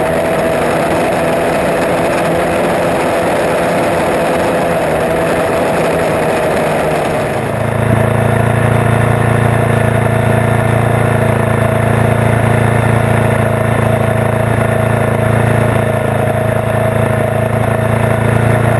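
Off-road go-kart engine running hard as the kart drives over rough ground, then, about seven and a half seconds in, the sound changes abruptly to the engine idling steadily.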